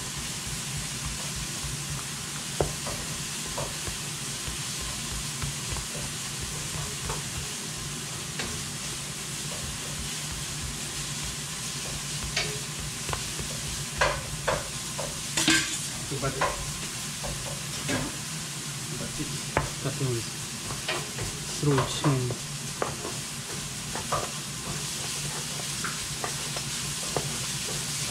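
Food sizzling as it is stir-fried in a hot pan, with a utensil scraping and clicking against the pan, more often in the second half.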